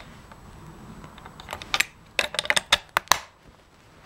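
A quick run of about a dozen sharp metallic clicks and clacks from the M1871 Comblain rifle's falling-block action as it is worked and loaded, about a second and a half in.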